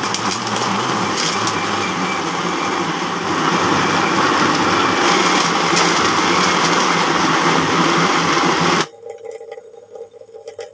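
Electric countertop blender running, its blades grinding raw chicken pieces with a little oil into a paste. It runs loud and steady, then switches off suddenly about nine seconds in.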